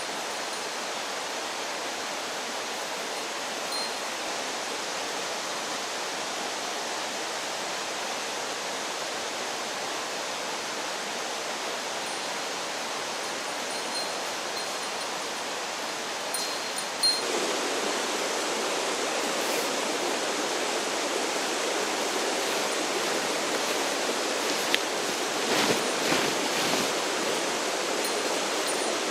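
Mountain stream running steadily, a continuous rush of water. A little past halfway it turns abruptly louder and fuller, and a few short knocks come near the end.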